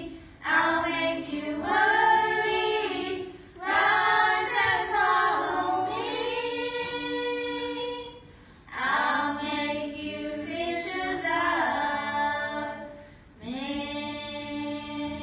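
A group of children singing a worship song together, in four phrases with long held notes and short breaths between them.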